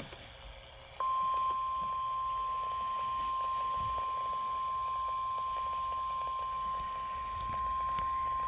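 Emergency alert tone for a tornado warning: a single steady high beep just above 1 kHz, the 1050 Hz NOAA Weather Radio warning alarm, starting about a second in over faint radio hiss.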